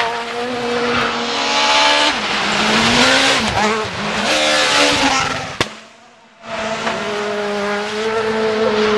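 Rally car engine at high revs with the pitch dipping and climbing through gear changes as the car slides through a gravel corner, over the hiss of tyres on loose gravel. Just past halfway there is a sharp click and the sound drops out briefly, then an engine note comes back and holds steady.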